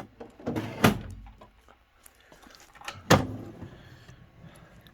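Tool-cart drawers sliding on their tracks and banging shut, two knocks about a second in and about three seconds in, with a low rumble of the slide after the first.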